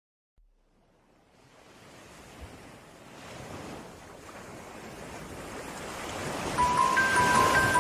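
A surf-like rushing noise fades in from silence and swells steadily louder over several seconds. About a second before the end, bright chiming notes like a glockenspiel come in over it, the start of a music track.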